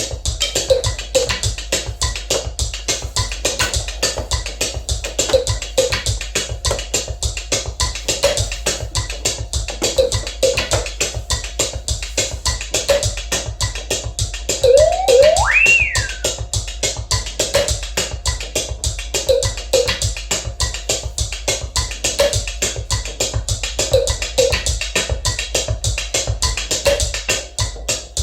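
Homemade mechanical acoustic beat sequencer playing a rapid, even clicking rhythm with short pitched knocks over it; about halfway through a pitch swoops up high and falls back down.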